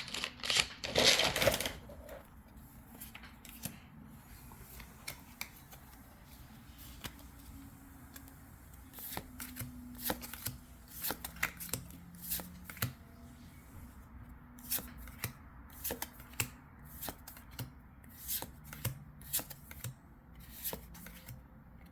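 Pokémon trading cards being flipped and slid one behind another in the hand, each card giving a light click. There is a louder rustle at the start, then the clicks come thickly from about halfway through.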